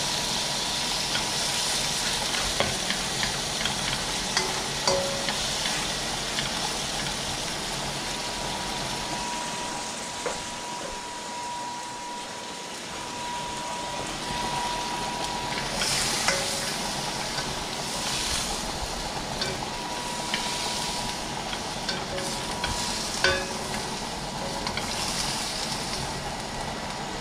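Frozen shrimp sizzling in hot oil in a frying pan, with a slotted spoon scraping and clicking against the pan as they are stirred. The stirring pauses for a few seconds around the middle.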